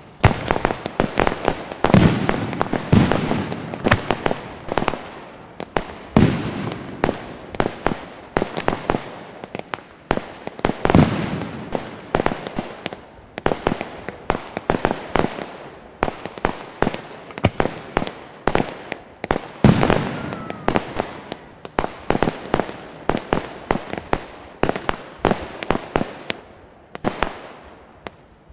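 Fireworks display: a continuous barrage of sharp cracks and bangs from bursting shells, with deeper booms every few seconds.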